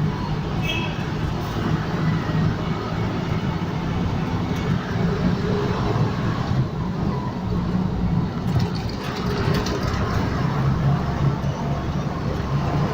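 Steady road traffic noise, a constant low rumble of vehicle engines and tyres.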